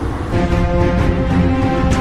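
Background music with long held notes, coming in a moment in over a low rumble.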